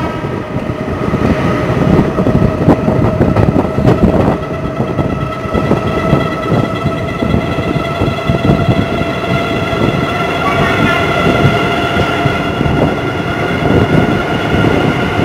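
Indian Railways express passenger train running at speed, heard loud from an open coach doorway: a continuous clatter of wheels over rail joints and points, with a steady high whine over it. The train is passing through a station without stopping.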